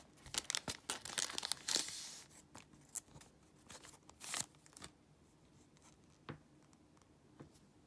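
Foil booster-pack wrapper crinkling as it is handled and torn open, loudest over the first two seconds. A few short crinkles and clicks follow as the trading cards are slid out.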